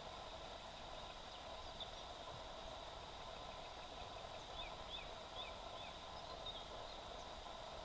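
Faint, steady outdoor hiss with a few short, high chirps, one about two seconds in and a quick series near the end.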